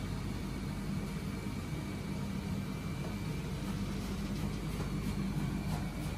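Steady low rumble of ramen shop kitchen machinery running, with a faint high steady tone over it and a few light clicks in the second half.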